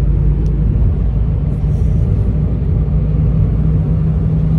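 Steady road and engine rumble heard inside the cabin of a moving car, with a faint constant hum.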